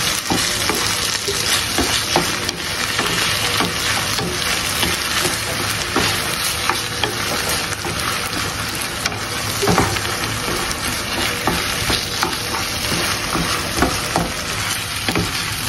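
Boiled rice being stirred into a sizzling pan of minced meat and vegetables: a steady frying hiss with scattered scrapes and taps of the spoon against the pan.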